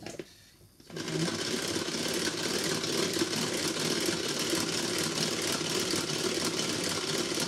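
Tupperware Speedy Chef 2 hand-cranked beater turned steadily, its gears and whisks whirring with a fast, even rattle as it whips cream for chantilly. It starts about a second in, just after a sharp click.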